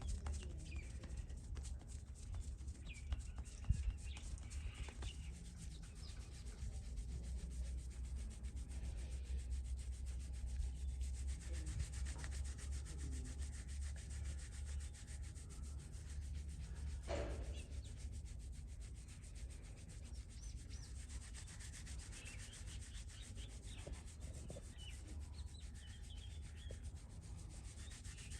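Hands rubbing and kneading skin and hair in a massage: a continuous, rapid, scratchy friction of many quick strokes, with one brief louder stroke partway through.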